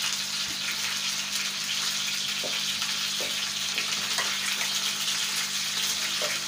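Chicken pieces frying in ghee on a large iron pan over a gas flame: a steady sizzling hiss with a few small pops.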